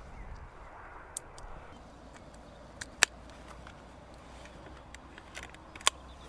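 Sharp clicks from a Daystate Pulsar bullpup air rifle as its loaded 10-shot rotary magazine is seated and the rifle is handled: a couple of light clicks just after a second, a loud click about three seconds in, and another near the end, over a faint steady outdoor hiss.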